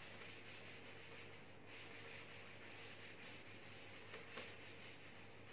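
Faint rubbing of a duster wiping a chalkboard clean, over a steady low hum and hiss.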